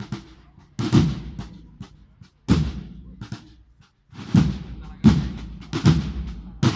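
Marching band drums playing without the cornets: heavy deep drum beats, spaced slowly at first and coming quicker in the second half, with lighter taps between them.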